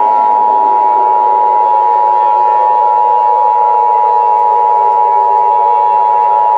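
Emergency Alert System two-tone attention signal: a loud, steady dual-tone alarm announcing an emergency alert, here a tornado warning. Beneath it a weaker drone slides slowly down in pitch.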